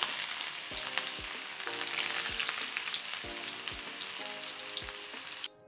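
Sliced onions sizzling in hot oil in an iron kadai, a steady frying hiss that cuts off suddenly near the end.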